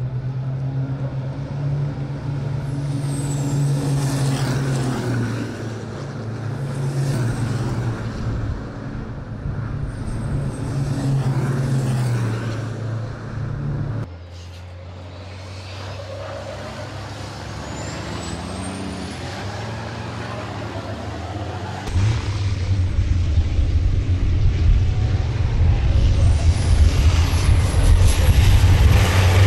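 Racing trucks' diesel engines running hard as the trucks pass, the engine note rising and falling with throttle and gear changes, with faint high whistles that glide in pitch. The sound changes abruptly about halfway through to a quieter engine note, then becomes louder and steadier again about three-quarters through.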